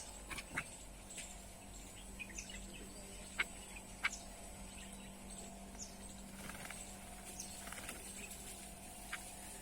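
Small birds bathing: light pattering splashes of water with scattered short, high chirps, and two sharper clicks about three and a half and four seconds in.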